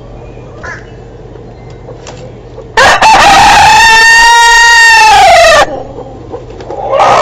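A rooster crowing once, loud: one long call of nearly three seconds that rises and then falls in pitch, starting about three seconds in. Another call starts near the end.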